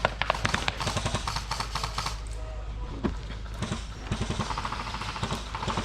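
Irregular knocks and clicks of footsteps on the ground, with gear rattling as the player moves.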